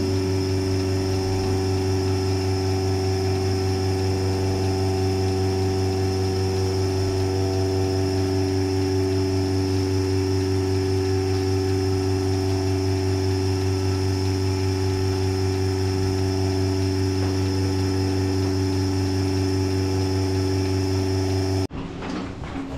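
Steady mechanical hum of an electric motor-driven pump or machine running at constant speed, with a slight regular pulsing in level. It cuts off abruptly near the end.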